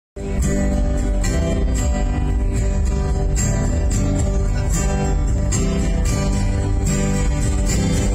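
Acoustic guitars strummed in a steady rhythm, live and unamplified-sounding, cutting in abruptly a moment after the start.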